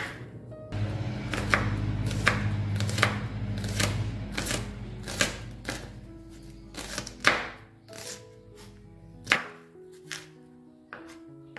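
A chef's knife slicing through small red onions and striking a wooden cutting board, one cut roughly every three quarters of a second.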